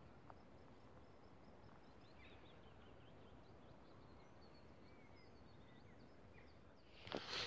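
Near-quiet outdoor air with faint, distant small birds chirping in short, high, thin notes throughout. Close, loud rustling and knocks of handling start suddenly near the end.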